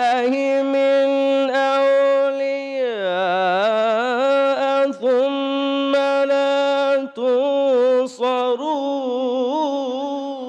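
A man reciting the Quran in the melodic tajweed style, drawing out long held notes with quivering ornaments. The pitch dips low about three seconds in, then climbs back, and the voice breaks off near the end.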